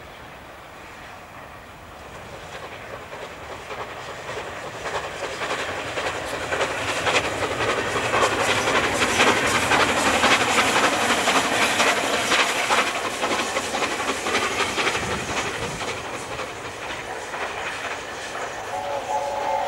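LNER A4 Pacific steam locomotive 60009 'Union of South Africa', a three-cylinder 4-6-2, passing at speed. Its exhaust and running noise grow steadily louder as it approaches, peak about halfway through as it goes by, then fade as it draws away.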